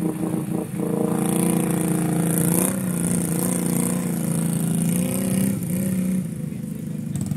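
ATV engine held at high, steady revs as the quad ploughs through deep mud and water, with a hiss of spraying water. The pitch dips briefly about three seconds in, and the engine eases off about six seconds in.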